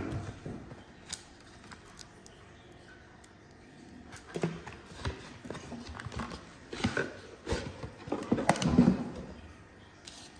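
Cardboard packaging handled while a new motorcycle battery is taken out of its box: a few light taps at first, then a run of rustling and scraping cardboard as the battery in its sleeve slides out, loudest near the end.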